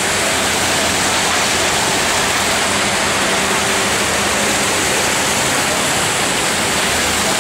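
Small ornamental fountain: water splashing steadily into its basin.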